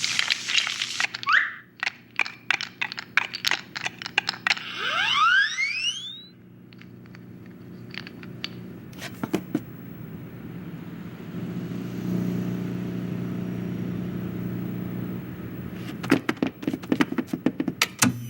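Cartoon sound effects in a rapid string. There is a brief hiss first, then a quick run of clicks and knocks with rising whistle glides around five seconds in. A steady low hum follows with a few scattered clicks, and a last flurry of clicks comes near the end.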